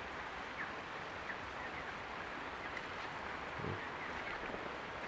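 Flock of 23-day-old broiler chickens: a steady background murmur with scattered short, high cheeps.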